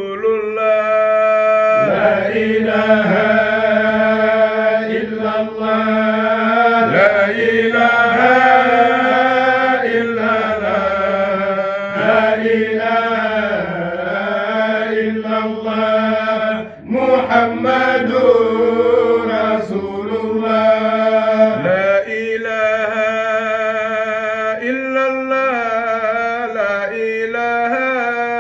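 Zikr chanting: voices singing a slow, melodic Islamic devotional chant in long drawn-out notes that slide in pitch over a steady held note, with one short break about two-thirds of the way through.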